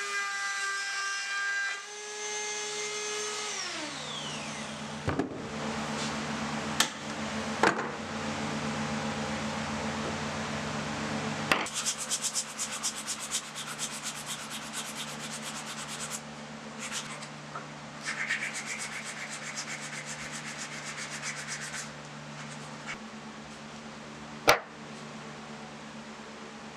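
A Ryobi trim router running with a pitched whine, then spinning down in a falling pitch after it is switched off. Then hand sanding of the wood with sandpaper in fast back-and-forth strokes, in two long runs, with a few sharp knocks and a steady low hum underneath.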